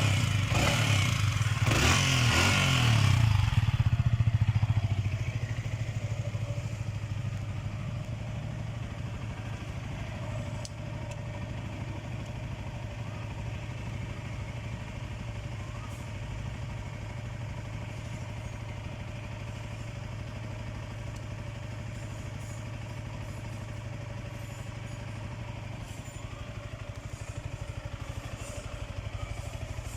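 Yamaha R15M's single-cylinder engine running: louder and busier for the first four seconds or so, then settling to a steady idle for the rest of the time.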